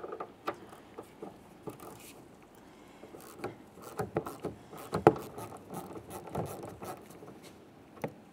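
Hand ratchet with a 10 mm socket turning out the bolt behind a truck's inside door handle: irregular clicks of the ratchet and light scrapes of the tool against the plastic door panel, busiest in the middle.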